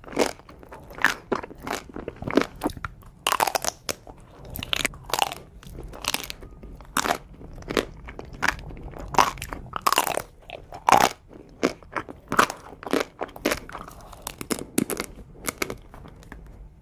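Someone biting and chewing a chocolate ice cream dessert close to the microphone, with a sharp crunch about every half second to second.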